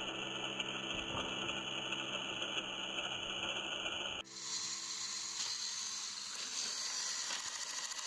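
Small battery-powered toy train motors and plastic gears whirring steadily. About four seconds in the sound changes abruptly to a different, higher whir.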